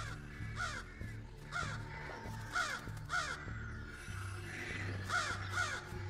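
Several crows giving harsh, repeated scolding caws, often two or more a second, mobbing a person wearing a mask they have learned to link with danger. Low, steady background music runs underneath.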